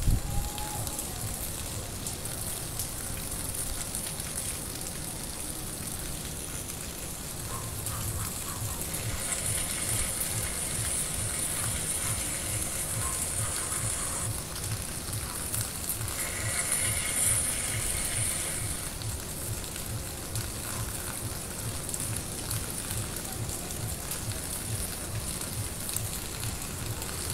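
Steady rain falling on rooftops and a wet street, a constant hiss that swells a little twice through the middle. A short sharp knock right at the start is the loudest moment.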